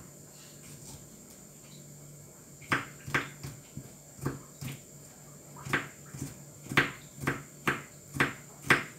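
A series of sharp, irregular knocks, a hard object striking a hard surface about twice a second, starting a few seconds in, over a faint steady hum.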